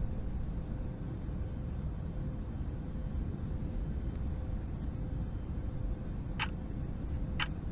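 Steady low rumble of airliner cabin noise in flight, with a faint steady hum and two short clicks in the last two seconds.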